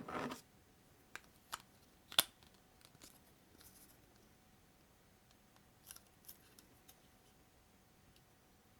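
Small plastic building bricks being handled and pressed together: a short rustle, then scattered sharp clicks, the loudest about two seconds in and a few more around six seconds.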